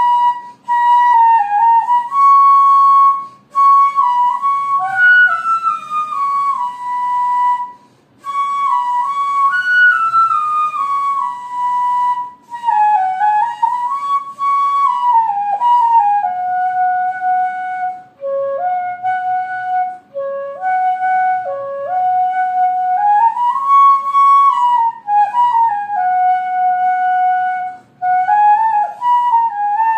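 Background music: a single melody played alone, sliding between notes, with short breaks between phrases.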